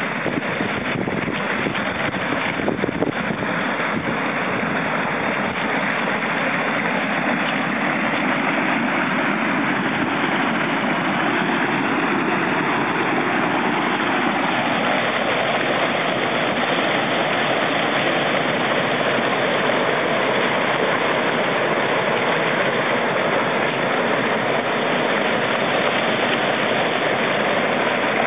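Loud, steady rush of water pouring out of the big outlet pipes at the foot of a reservoir dam, growing slightly louder toward the end.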